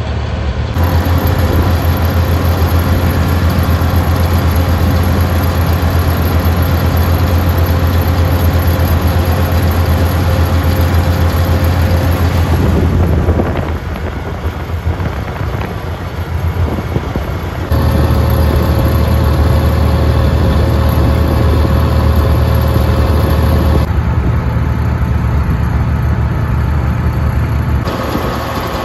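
Old farm tractor's engine running steadily at road speed, heard from the driver's seat: a loud, even low hum. It drops quieter for a few seconds in the middle, then comes back.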